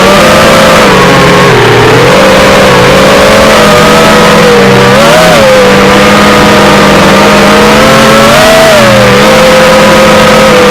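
Racing quadcopter's brushless motors and propellers whining loudly, the pitch dipping and swelling as the throttle changes, with a sharper rise near the end.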